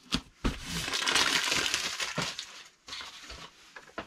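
A hand rubbing a self-adhesive paper shipping label down onto a cardboard box: a crackly rustling scrape for about a second and a half, with a few sharp clicks around it.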